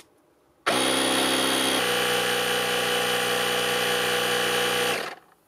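Parkside PKA 20-Li A1 20 V cordless compressor switched on with a click of its start button, then its motor and pump running steadily while inflating a wheelbarrow tyre; the note changes once soon after it starts, and it stops about five seconds in.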